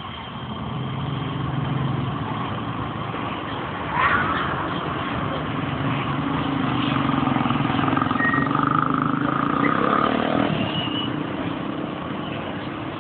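Steady running noise of vehicles in motion, with motorcycles and jeepney engines in street traffic. A short, loud sound that rises in pitch comes about four seconds in.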